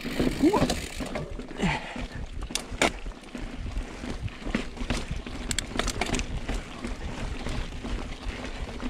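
Mountain bike (Specialized Status) riding fast down bare rock slab: a steady low rumble of tyres on rock and air past the microphone, with frequent clicks and rattles from the bike over bumps. A few short squeaks come in the first two seconds.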